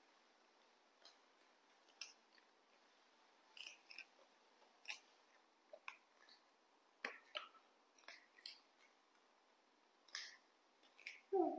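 Young macaques nibbling and crunching crisp snack sticks: scattered small, sharp crunches and clicks at irregular intervals. Near the end comes a short, louder vocal sound.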